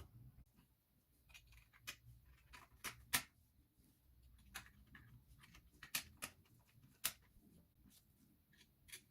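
Irregular light clicks and taps of small parts and hand tools being handled on a workbench, with sharper clicks about three seconds in and about seven seconds in.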